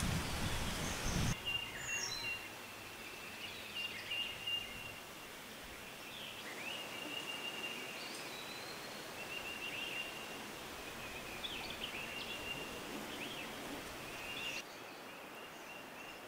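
Small birds chirping and calling, with short whistles and a repeated high note, over a quiet outdoor background. A loud rushing noise fills the first second or so, then cuts off abruptly.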